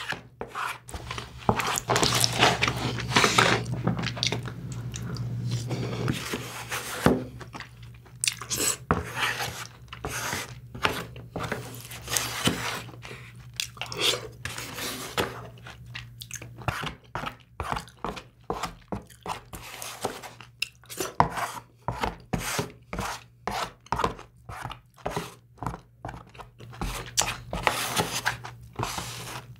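Close-miked chewing of braised kimchi and rice, wet and slightly crunchy. After several seconds it settles into a quick, regular run of mouth clicks, about two a second.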